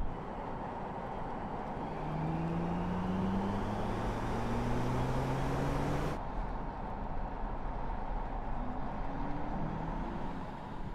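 BMW iX3 electric SUV driving, with steady tyre and road noise and a low electric hum that slowly rises in pitch. The hum breaks off abruptly about six seconds in and rises again near the end.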